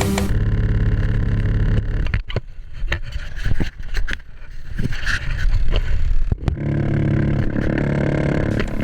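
ATV engine running, with sharp knocks and rattles from the machine. The engine drops back about two seconds in and picks up again steadily near the end.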